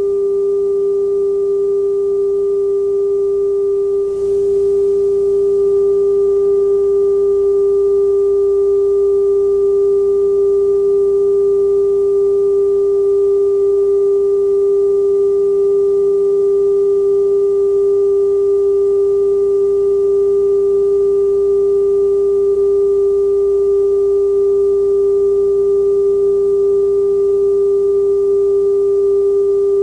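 Television test-pattern tone: a single steady tone with faint overtones over low hum and hiss. It dips briefly about four seconds in and then holds.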